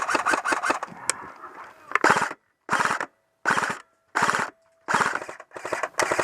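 Airsoft electric guns firing on full auto: about two seconds of continuous rapid fire, then a string of short bursts roughly every 0.7 s.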